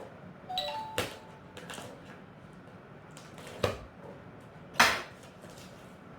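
Handling noises of a parcel being cut and opened by hand: a few sharp clicks and knocks about one, three and a half and nearly five seconds in, the last the loudest, over faint rustling.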